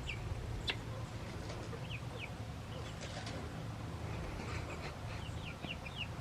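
Young chickens, pullets about eight weeks old, giving short, high, falling peeps: scattered single chirps, then a quicker run of them near the end.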